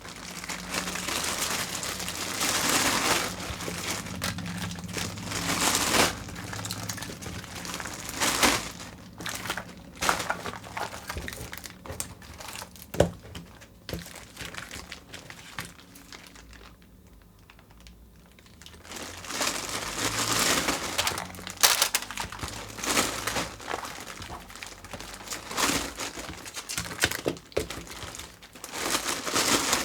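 Candy and chocolate wrappers crinkling and tearing as they are opened, in irregular bursts with a short quiet spell a little past the middle.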